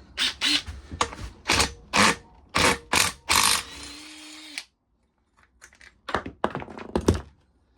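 Metal hand tools clinking and knocking, a quick run of sharp knocks as sockets are handled and tried on an engine bolt, then a brief steady whirr, and a few more clacks near the end.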